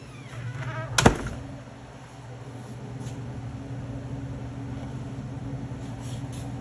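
Welding equipment running with a steady electrical hum, with one sharp loud click about a second in.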